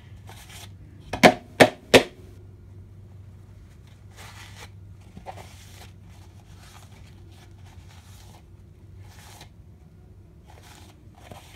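Three sharp, loud knocks close to the microphone in quick succession, a little over a second in. They are followed by faint, intermittent rustling of a paper towel being handled and wiped, over a low steady hum.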